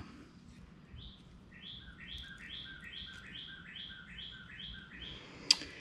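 A bird calling: a run of about ten evenly spaced short notes, two to three a second. Near the end there is one sharp click, as crimping pliers close on a wire terminal.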